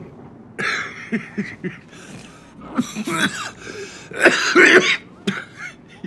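A man coughing in several rough bouts, the loudest near the end: a sick man on oxygen fighting for breath.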